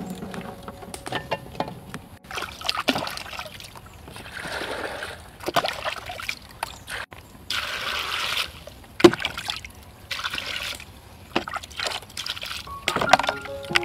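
Water scooped with a plastic dipper and poured over a pot of arrowroot tubers: four short splashing pours, with sharp knocks of the dipper between them.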